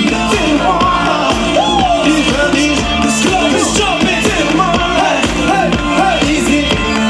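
Live pop concert music played loud through an outdoor PA, a steady beat and bass with a male lead vocal singing over it, heard from within the audience.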